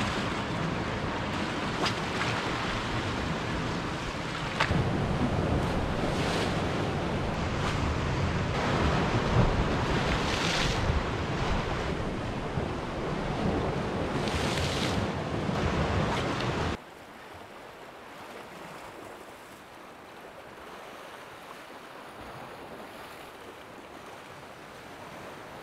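Sea swell surging and breaking against the rocks, with wind buffeting the microphone and a few louder surges. About two-thirds of the way through it cuts suddenly to a quieter, steady wash of the sea.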